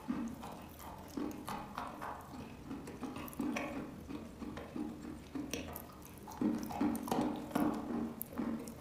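Close-up chewing of wet, crumbly chalk: irregular soft crunches and moist mouth clicks.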